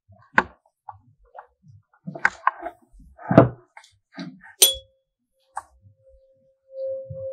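A few knocks and a thud from handling the resonance-tube apparatus, then a 512 Hz tuning fork struck with a sharp clang about four and a half seconds in. It rings on as one steady pure tone that grows louder near the end as it is brought to the mouth of the resonance tube.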